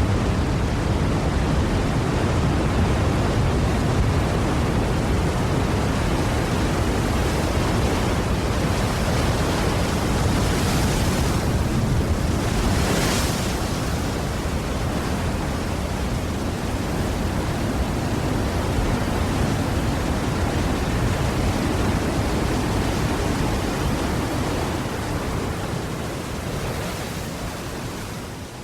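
Ocean surf: a continuous wash of waves, with a brighter hiss twice around the middle as waves break, fading out near the end.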